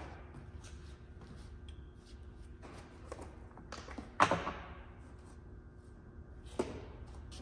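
Tools and parts being handled and set down on a steel workbench. There are a few light knocks, a sharp clank about four seconds in, and a smaller knock near the end.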